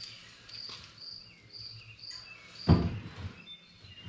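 A cricket chirping steadily, about two short chirps a second, with a single loud thump about two and a half seconds in.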